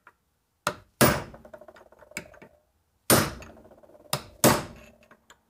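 Hammer striking a punch against the pinion nut of a Toyota 8-inch differential, staking the nut's collar so it can't back off. There are five sharp metal-on-metal blows, each with a short ring after it, the last two close together.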